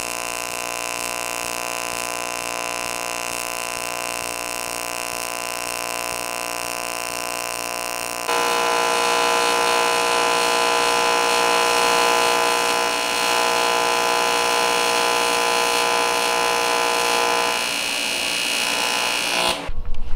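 AC TIG welding arc on aluminium, a steady electric buzz. About eight seconds in it jumps louder and harsher, and it cuts off shortly before the end.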